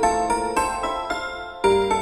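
Background music played on a piano-like keyboard, with notes struck in an even, gentle rhythm and a change of chord near the end.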